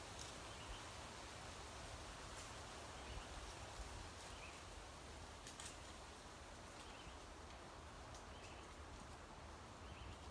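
Quiet forest ambience: a soft even hiss of wind through the trees with a low rumble of wind on the microphone, and a faint small call repeating about once a second.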